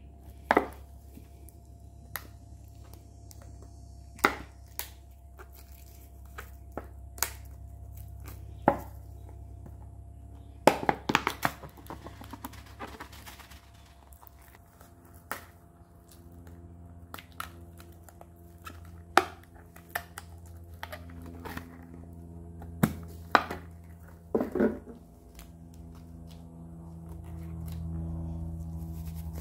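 Hand-crafting noises as materials are handled: scattered sharp knocks and taps, with a quick flurry of crinkling and clatter about eleven seconds in and another near the end, over a low steady hum.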